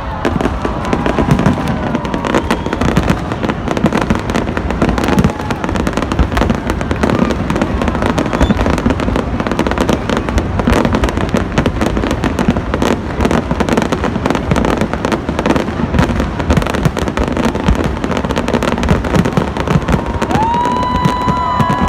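Fireworks display: a dense, continuous run of bangs and crackling shell bursts with low rumbling booms. Near the end a held pitched tone with overtones comes in over the bursts.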